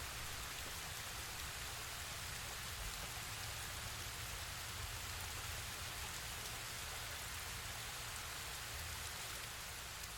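Waterfall running: a steady, dense rush of falling water with a low rumble underneath.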